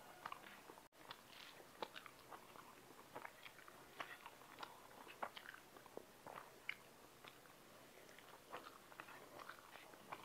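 Faint, close-miked chewing and wet mouth sounds of a person eating rice by hand, with small irregular clicks and soft squelches as fingers mix the rice on the plate.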